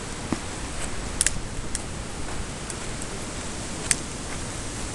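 Steady outdoor background hiss, with a few faint sharp clicks scattered through it, the clearest about a second in and near four seconds in.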